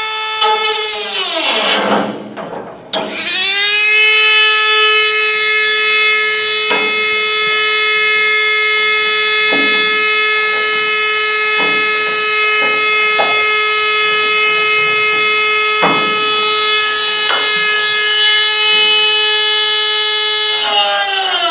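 High-speed cut-off tool cutting the door's sheet metal: a steady, high-pitched motor whine with a few brief clicks. It winds down and stops about two seconds in, spins back up a second later, and starts winding down again near the end.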